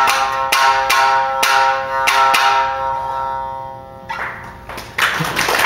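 Shamisen played with sharply struck notes in quick succession, the last notes left to ring and fade out at the end of the piece. Applause breaks out near the end.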